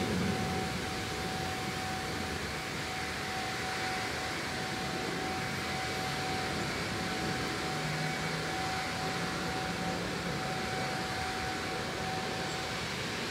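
Steady background hiss with a constant, unchanging mid-pitched hum, like a machine running steadily; no sound from the spider itself.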